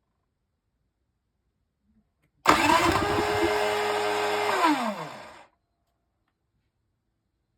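Genmax 3500iaed generator's electric starter cranking the engine for about two seconds, starting suddenly about two and a half seconds in, then winding down in pitch and stopping as the engine fails to catch. The generator will not start on either gasoline or propane.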